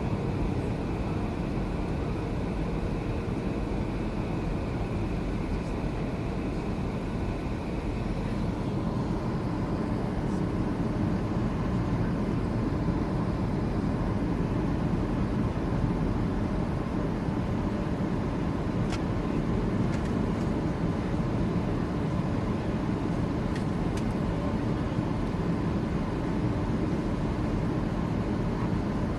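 Steady roar of an airliner's engines and rushing air, heard from inside the cabin during the approach, with a faint high tone that fades about eight seconds in.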